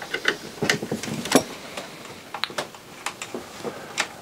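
Irregular light clicks and taps of hand tools and parts being handled in the opened CD player's chassis, with one sharper knock a little over a second in, as a screwdriver is set to the transformer's mounting screw.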